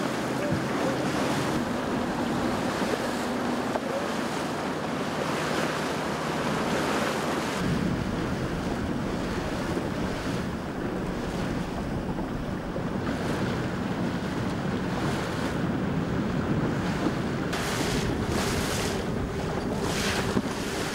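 Wind buffeting the microphone over the steady wash of sea water and waves, with a deeper rumble setting in about eight seconds in.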